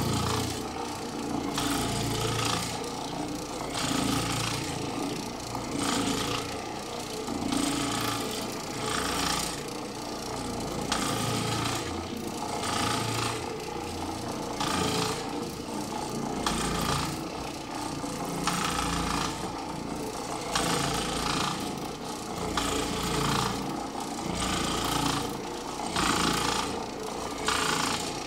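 Oreck orbital floor machine running, its pad scrubbing over carpet as it is worked back and forth. The sound swells and fades every second or two.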